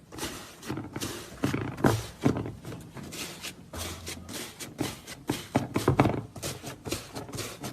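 Slime being worked and pressed, making many quick, irregular crackles and clicks.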